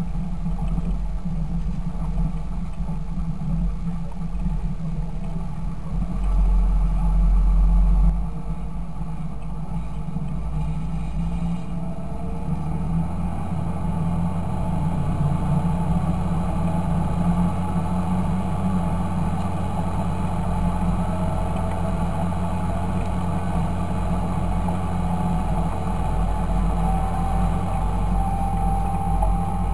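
Fendt 926 Favorit tractor's six-cylinder turbo-diesel engine running steadily, with a louder low surge about six seconds in that drops back after two seconds, then settling into an even, slightly higher drone.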